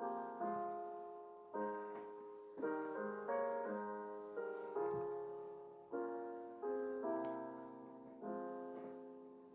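Soft background piano music: sustained chords struck about once a second, each fading away before the next.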